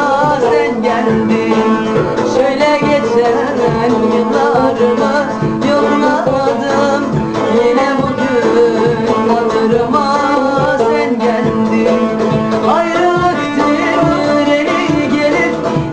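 A woman singing a Turkish song with vibrato, accompanied by a plucked cümbüş.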